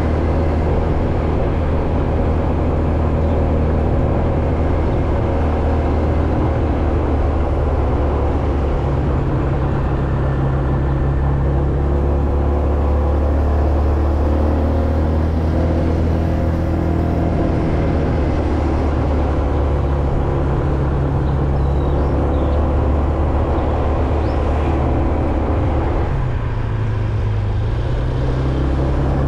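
Motor vehicle engine running steadily on the move, its note shifting about nine seconds in and again near the end.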